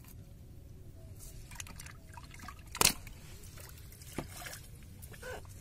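Water splashing and trickling as a fish is handled at the side of a wooden boat, with scattered small splashes, one sharp loud impact about three seconds in and a smaller one a second later.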